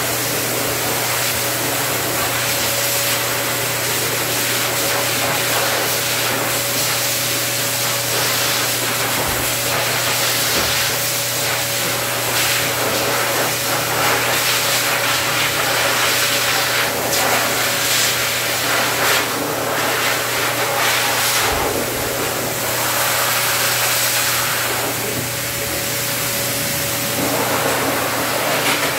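A pet grooming dryer blowing air through its hose and nozzle onto a dog's curly coat: a steady rush of air over a low motor hum, with a thin whine that fades out near the end.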